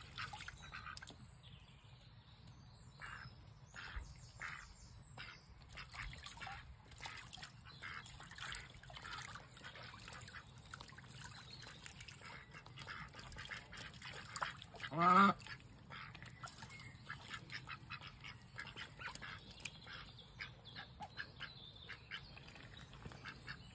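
Domestic ducks dabbling and splashing in shallow water and mud, with many short clicks and soft quacks. One louder, rising quack stands out about fifteen seconds in.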